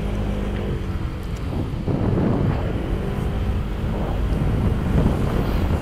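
Honda PCX scooter's single-cylinder engine running while being ridden through city traffic, mixed with wind noise on the microphone, which gets a little louder about two seconds in.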